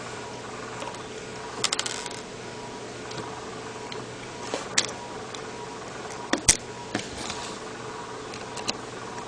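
Scattered small clicks and taps of a T5 Torx screwdriver and the phone's plastic housing as the BlackBerry Bold's case screws are driven back in, with a quick run of clicks about one and a half seconds in and a few single sharp clicks later.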